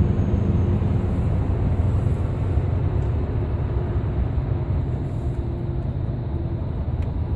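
Scania R620 truck's V8 diesel engine and tyres heard from inside the cab while cruising on the motorway: a steady low drone.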